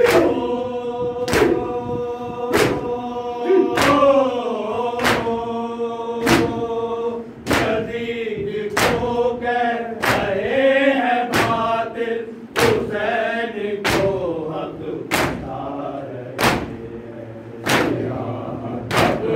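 Shia nauha (Urdu lament) chanted by men's voices in unison, with synchronized matam chest-beating strikes landing together in a steady beat about once every one and a quarter seconds.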